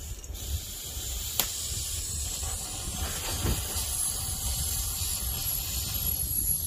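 A steady high hiss, like air or spray escaping under pressure, starts just after the beginning and cuts off at the end, over a low rumble of wind, with one sharp click about a second and a half in.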